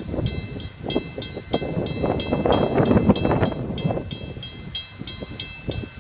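Railroad crossing bell ringing rapidly, about three strikes a second, warning of an approaching train as the crossing gates come down. A louder rushing noise swells in the middle.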